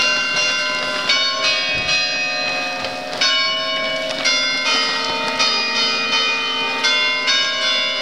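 Church bells ringing, several bells of different pitch struck one after another, about one to two strikes a second, each tone ringing on under the next.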